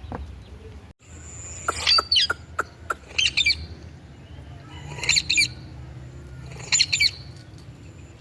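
Indian ringneck parakeet screeching: short bursts of several shrill, rapid notes, repeated every second or two.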